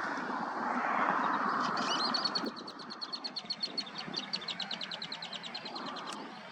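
A small songbird's rapid trill, an even string of about ten high notes a second lasting about four seconds, over a rushing noise that dies away about two and a half seconds in.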